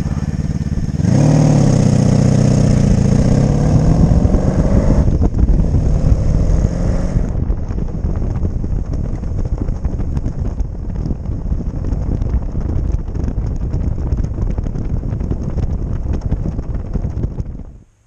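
Motorcycle engine pulling away about a second in and revving up in pitch as it accelerates, then running steadily at road speed with wind and road noise. The sound cuts off suddenly near the end.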